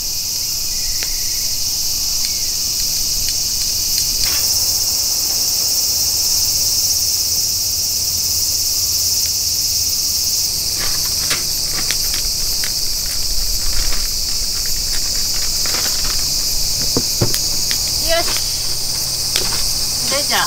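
Steady, loud, high-pitched chorus of insects shrilling. From about halfway through, light knocks and clicks of small things being handled on a camp table.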